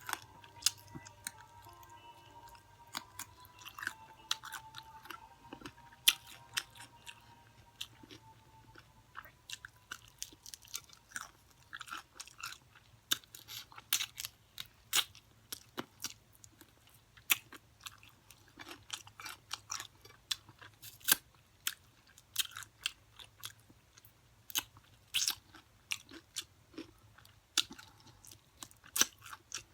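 Close-up chewing and crunching of crispy fried chicken, with wet smacking and sharp crackles of the crust scattered throughout.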